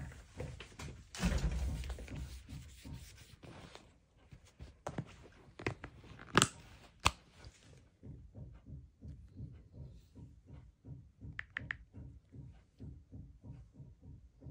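Handling noise from an iPhone and its plastic case on a cloth sheet: rubbing and brushing at first, then a few sharp plastic clicks and taps. After that comes a string of soft, evenly spaced low thuds, about three a second.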